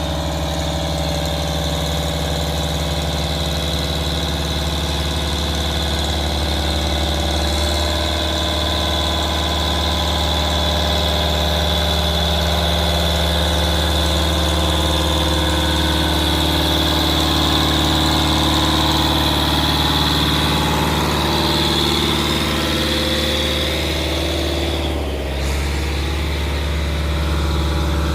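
Fiat Agri 70-90 DT tractor's diesel engine working steadily under load, pulling a loaded grain trailer up a steep 15% slope, with a steady high whine over it. About three seconds before the end the sound briefly dips and the whine stops.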